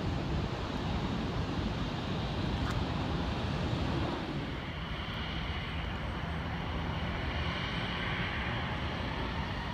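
Distant jet airliner engines running across the airfield, a steady rumble with a high engine whine that comes in about halfway through, while wind buffets the phone's microphone.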